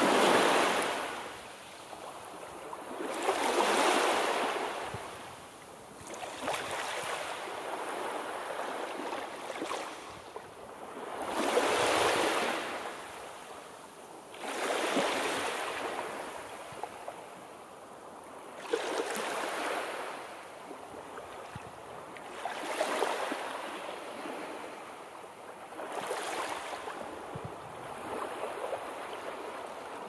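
Sea waves breaking on the shore. The surf swells and fades in a rush of hiss about every three to four seconds.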